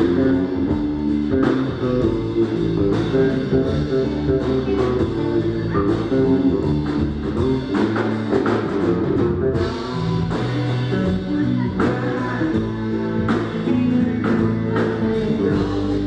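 Live rock band playing on a stage: electric guitars, bass and drums, with a steady beat of drum hits.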